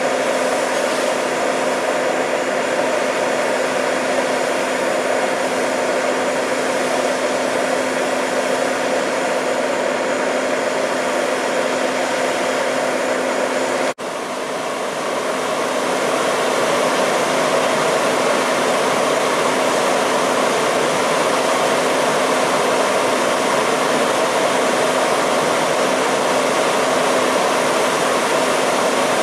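Fire engines running steadily at the scene: a constant rushing mechanical noise with a steady low hum from the apparatus engines and pumps. It drops out briefly at a cut about halfway, then carries on the same.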